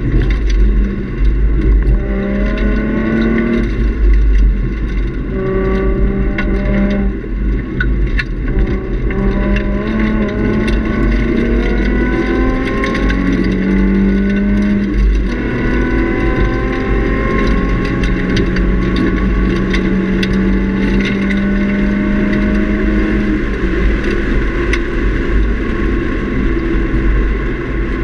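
Nissan 350Z's 3.5-litre V6 through a Nismo cat-back exhaust, heard from inside the cabin at speed on track: the engine rises in pitch in several short runs, each broken off, then pulls in one longer steady climb from about halfway. Heavy low road and wind noise underneath.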